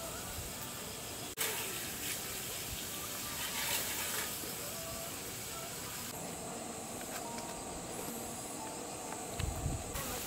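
Food sizzling in a hot pan, a steady hiss with a brief break about a second and a half in.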